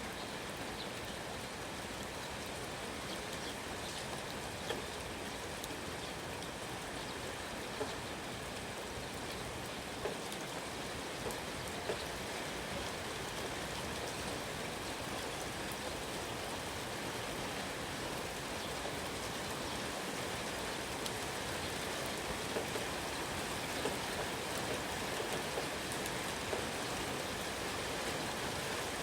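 Steady rain falling, an even patter with a few louder single drips scattered through it.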